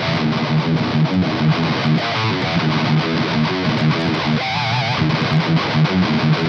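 Heavy metal riff on a distorted electric guitar played through the Aurora DSP Laboga Chainsaw distortion and Laney Digbeth amp-simulator plugins: rhythmic low chugging, with a held note wavering in vibrato about four seconds in.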